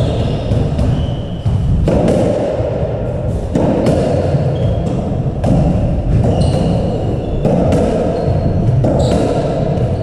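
Squash rally: the ball smacking off rackets and the court walls again and again, with shoes squeaking on the wooden floor, over a continuous background noise of the hall.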